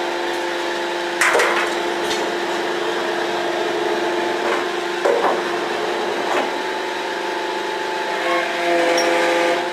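Roadheader running: a steady machine drone under several crunching cracks, the loudest about a second in and about five seconds in, typical of its pick-studded cutting head breaking rock.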